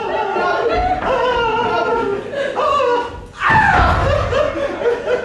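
Actors' voices in theatrical dialogue on stage, with a loud exclamation that falls sharply in pitch about three and a half seconds in.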